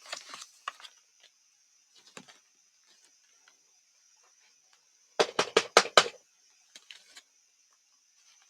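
Faint scattered clicks and handling sounds, then a quick run of about five sharp knocks or taps about five seconds in.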